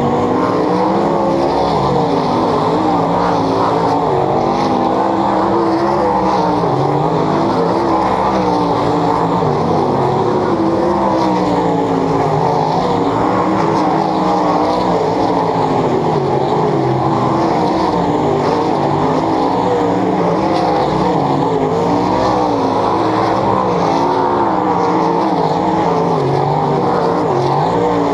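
A field of 410 sprint cars racing on a dirt oval: several methanol-fuelled V8 engines run loud and without a break, their overlapping pitches rising and falling as the cars go around the track.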